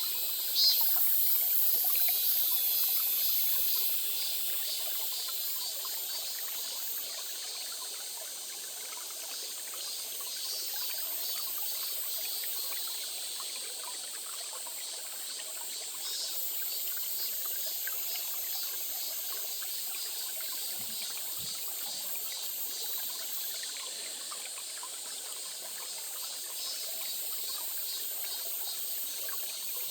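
A small stream trickling and splashing steadily, a bright, hissy water sound. A short sharp click about a second in is the loudest moment.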